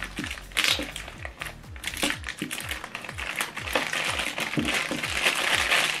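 Clear plastic bag crinkling as it is handled and opened, loudest in the last couple of seconds, over background music with a steady bass beat.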